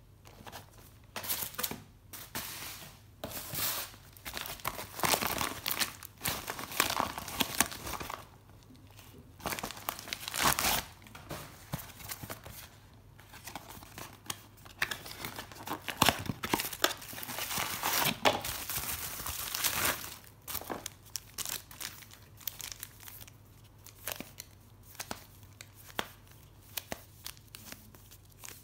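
Packaging being crinkled and torn open by hand, in irregular rustling bursts with clicks, loudest in a few spells of handling.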